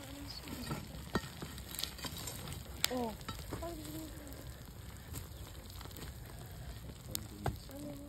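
Glowing charcoal and slag crackling and sizzling in the opened mouth of a clay bloomery furnace while an iron rod pokes at the hot iron bloom, with a few sharp clicks.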